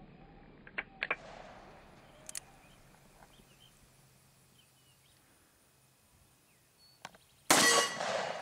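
A single gunshot from a Freedom Arms Model 83 .475 Linebaugh single-action revolver about seven and a half seconds in, loud and sharp with a short ringing decay. A few faint clicks come before it.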